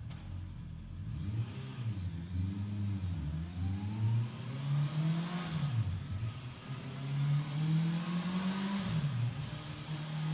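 Honda CB650R's inline-four engine revved through its stock exhaust, the pitch climbing and dropping several times in throttle blips and climbing again near the end.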